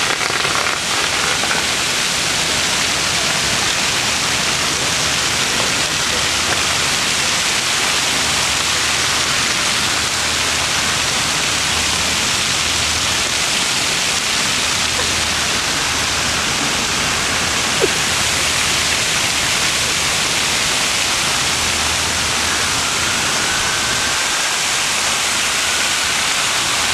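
Arching jets of a plaza fountain spraying and splashing onto wet pavement close by: a steady hiss of falling water. A single short click stands out about two-thirds of the way through.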